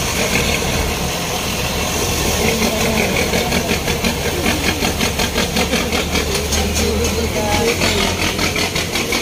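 Military cargo truck's engine running as the truck rolls slowly closer: a steady low rumble with a rapid, even clatter that comes in about two seconds in and grows.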